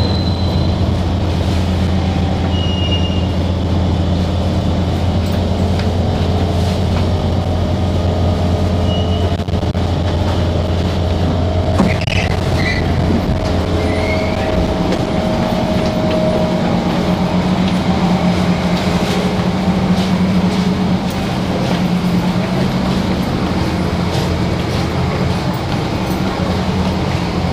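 Singapore MRT train running, heard from the ride with a steady low motor hum and rumble; the hum's deepest part drops away about halfway through as the train's running changes. A few brief high wheel squeals come about twelve seconds in.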